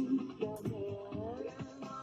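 Background music: a song with a sung melody over percussion.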